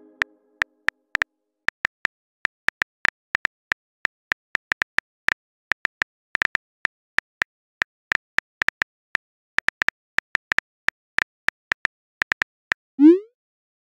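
Phone keyboard typing clicks, a few a second at uneven intervals, as a text message is typed out. Near the end a short rising swoosh sounds as the message is sent.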